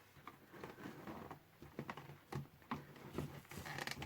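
Faint, scattered small clicks and scrapes of hands working a radio's plastic case and chassis while prising the chassis loose.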